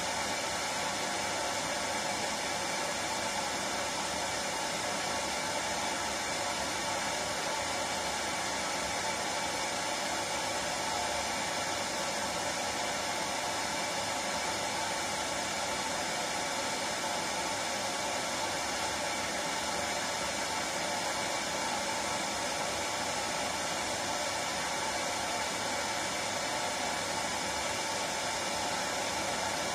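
Hair dryer running steadily, an even rushing blow with a faint motor whine and no change in level.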